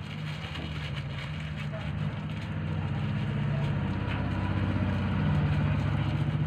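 A motor engine running steadily nearby with a low hum, growing louder over the few seconds.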